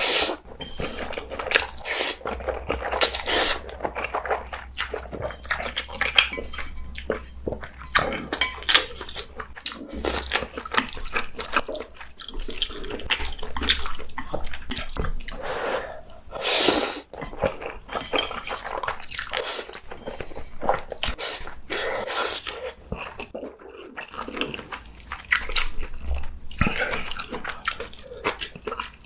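Close-miked eating sounds of black bean noodles and green onion kimchi: wet chewing and slurping in a continuous, irregular run of short strokes.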